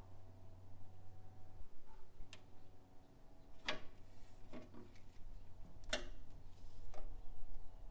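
Scattered sharp clicks and knocks of hand tools on truck engine parts, about five in eight seconds. A low hum stops about a second and a half in.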